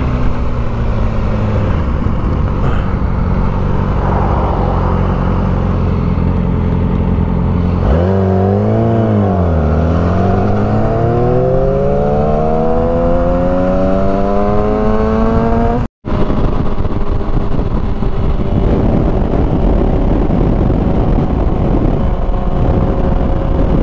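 Motorcycle engine running on the road. About eight seconds in the revs drop briefly, then climb steadily for several seconds as the bike accelerates. The sound cuts out for an instant about halfway through, then the steady engine sound goes on.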